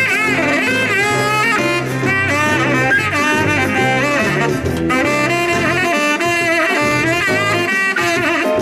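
Saxophone playing an instrumental solo in a New Orleans-style jazz number, with wavering, bending notes over a steady bass line from the band.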